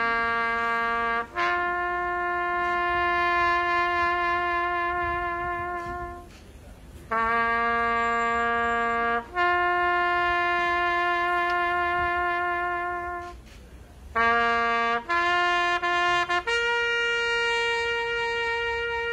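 Solo trumpet playing a slow melody of long held notes, each sustained for a few seconds, with brief breaks between them.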